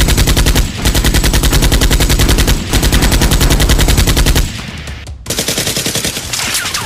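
Automatic-gunfire sound effect, rapid shots in three long loud bursts with short breaks between them, then a quieter, lighter stream of fire after about four and a half seconds, laid over Nerf blasters being fired.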